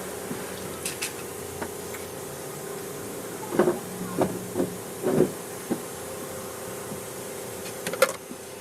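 A steady mechanical hum with a cluster of sharp knocks through the middle and a few bright metallic clinks, like tools and metal parts being handled.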